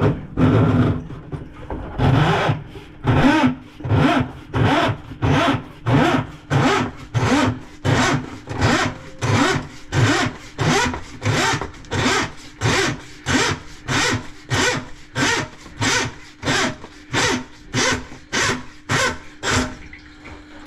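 Rhythmic rasping scrapes, about two a second, over a steady motor hum: a drain-cleaning machine's cable working through a kitchen drain line clogged with grease.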